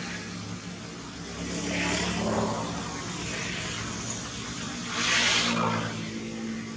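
Motor vehicle engine running with a steady low hum, the noise swelling twice as traffic passes, about two seconds in and again about five seconds in.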